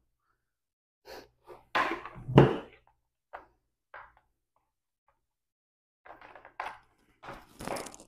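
Handling knocks from a power adapter and its cord: a few clacks as the cord is uncoiled, the loudest two about two seconds in. Near the end come light rattles and clicks as the cord's plug is pushed into the adapter brick.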